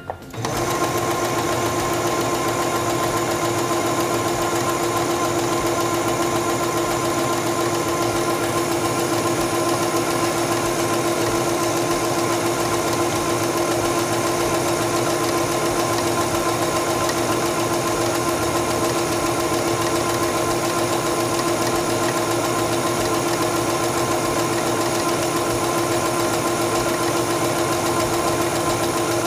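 Singer Stylist 7258 computerized sewing machine stitching a serpentine stitch at a shortened 0.8 stitch length. Its motor and needle run with a steady whine at one constant speed throughout.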